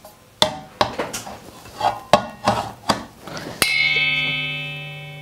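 Knocks and clatter of the aluminium milk bowl of a cream separator being set onto its housing, then a sharp knock about three and a half seconds in sets the bowl ringing with a metallic tone that fades slowly.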